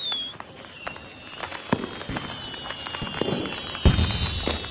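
Fireworks going off: scattered sharp cracks and pops over long, high whistles that slowly fall in pitch. One deep bang about four seconds in is the loudest sound.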